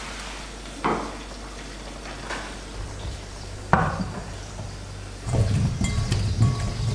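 Peeled potato pieces knocking into a glass bowl, three separate knocks, then a denser run of low clunking as a hand tosses the spiced potatoes in the bowl, starting a little past halfway.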